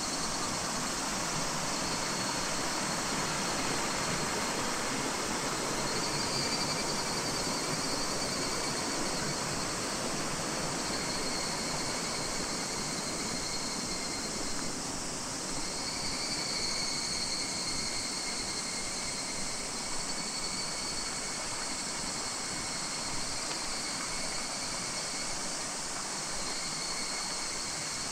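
Higurashi (evening cicadas) calling: high ringing calls that swell and fade in waves, several overlapping, over a steady rushing hiss.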